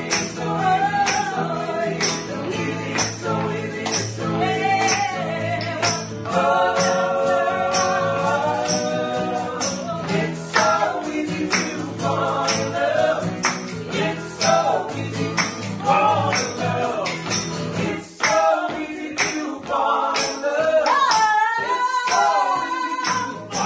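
Several voices singing together to two acoustic guitars, with hand claps and a shaken hand percussion instrument keeping a steady beat of about two strokes a second. About three quarters of the way through the guitars drop out, and the singing and clapping carry on, one voice holding a long high note near the end.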